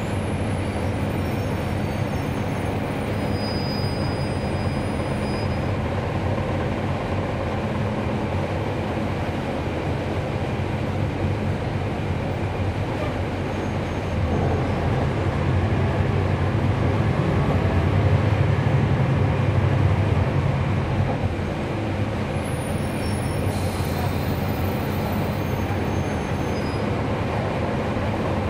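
Inside a NABI 416.15 transit bus on the move: its Cummins ISL9 straight-six diesel and ZF Ecolife six-speed automatic running steadily under road and body noise. The engine grows louder for several seconds about halfway through, then eases back.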